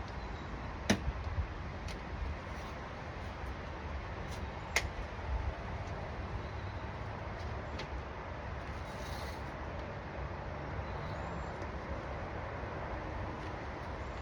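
Steady low background noise with a few sharp clicks or taps, the clearest about one second in and again near five seconds in.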